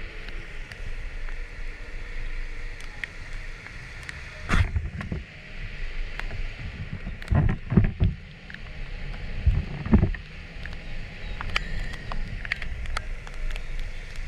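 Kymco Like 125 scooter riding on a wet road: steady engine rumble, wind and tyre hiss, broken by several loud low thumps, one about four seconds in, a pair near the middle and one more a couple of seconds later.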